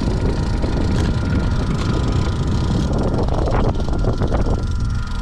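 A power boat's motor running steadily under way, a loud low rumble with a steady whine above it. A few short knocks come about three to four seconds in.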